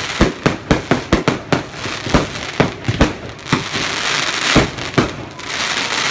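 Fireworks display: a rapid run of sharp bangs, several a second, thickening into a dense crackle about four seconds in and again near the end.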